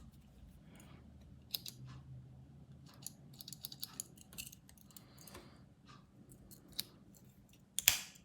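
Small spring-loaded scissors of a Victorinox Alox Pioneer X pocket knife being worked: a run of light, irregular metallic clicks and snips. One loud, sharp click comes near the end.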